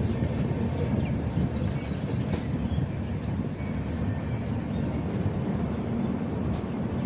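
Indian Railways passenger coach rolling along a station platform as the train arrives, a steady rumble of wheels on rails heard from the open coach doorway.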